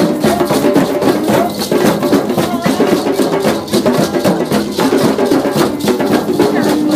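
Group hand drumming, many drums played together in a steady, continuous beat.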